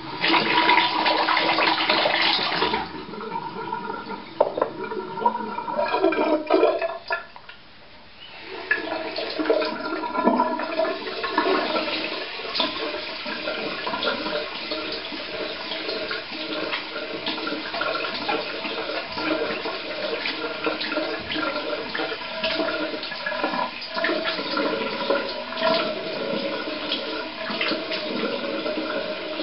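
Water running from a bathroom tap into a basin, with splashing, as a freshly shaved face is rinsed. It is strongest in the first few seconds, dips briefly around seven or eight seconds in, then runs on steadily.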